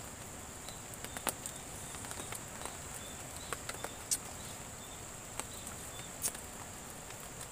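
Outdoor ambience: a steady high-pitched hum with sharp ticks and pops scattered irregularly through it.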